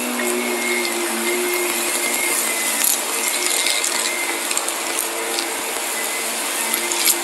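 Shark upright vacuum cleaner running steadily as it is pushed over a mat full of fine dirt, with scattered ticks and crackles of grit being sucked up and a sharper click near the end.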